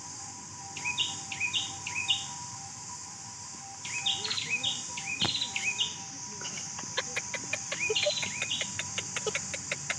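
A bird calling in short bursts of three or four quick repeated notes, over a steady high drone of insects. A run of rapid clicks joins in the second half.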